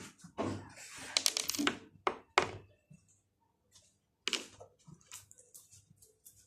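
Handling noise: a quick run of clicks and knocks, with two sharp strikes about two seconds in, then a single knock and a few faint taps.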